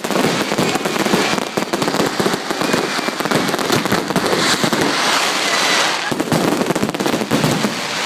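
Fireworks going off in a rapid, unbroken run of crackles and pops.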